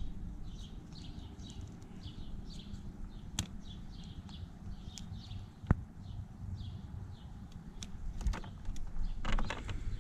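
Birds chirping over and over in the background, with a few sharp clicks and taps from handling a Corvette fuse block's plastic connector. The loudest click comes about halfway through, and a quick cluster of clicks comes near the end.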